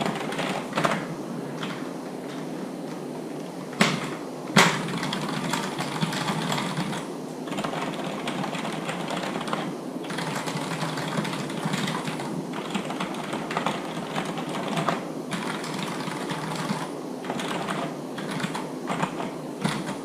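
Fast, continuous typing on computer keyboards: the Cherry G80-3000 MX Board Silent with its noise-dampened MX Silent switches, compared against a cheap keyboard. The keystrokes run together into a steady clatter, with two sharper clacks about four seconds in.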